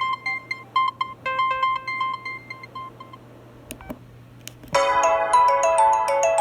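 An LG enV (VX9900) cell phone playing its ringtones through its small speaker: a simple beeping melody stops about three seconds in. After a short gap with a couple of faint clicks, a louder chiming, mallet-like ringtone starts near the end.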